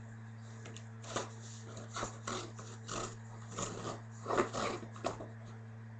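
Cardboard box being handled by hand: a string of short scratchy rustles and scrapes as the cut flap of the doorway is bent and pushed.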